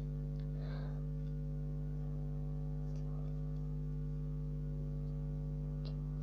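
Steady low electrical hum with several unchanging pitches stacked on each other, and a few faint clicks.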